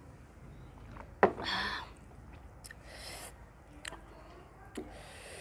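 A drinking glass set down with a sharp clack on a wooden table about a second in. Then three short breathy huffs a second or two apart, with soft clicks between them, from a person eating rice and curry by hand.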